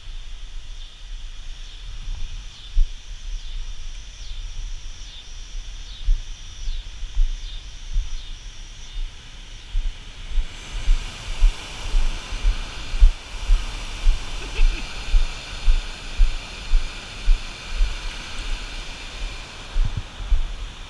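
Steady rush of whitewater pouring through a river dam, growing louder about halfway through. Over it, a run of low, dull thumps comes about twice a second in the second half.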